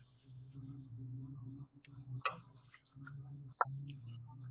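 Metal ladle scooping broth from a copper pot, clinking sharply twice, about two seconds in and again a second and a half later. A low steady hum runs underneath, dropping out briefly around the first clink.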